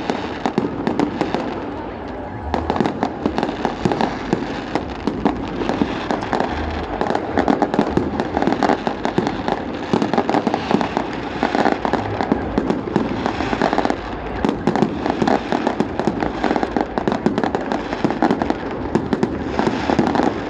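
Fireworks going off in a dense, continuous stream of sharp bangs and crackles, many per second.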